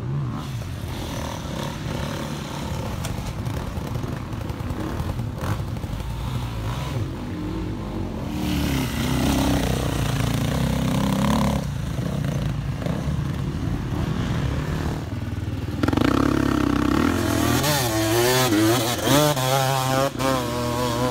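Dirt bike engine revving hard under load on a steep loose climb, the revs rising and falling with the throttle. From about two-thirds of the way in, the pitch swings up and down in quick pulses as the rider works the throttle.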